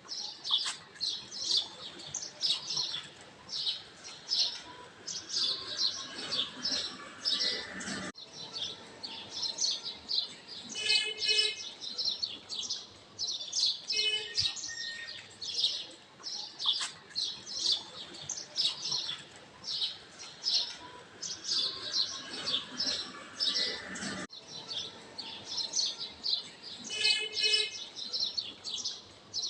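Songbirds chirping continuously in quick, high twittering phrases, with an occasional short, clearer call. The birdsong is a looped nature-sound track that repeats about every 16 seconds.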